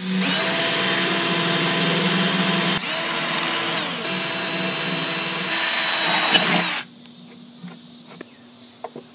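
Cordless drill with a 3/16-inch bit drilling pilot holes into an aluminium boat gunwale. It runs steadily for about seven seconds, eases off briefly about three seconds in, then stops. A few light clicks follow.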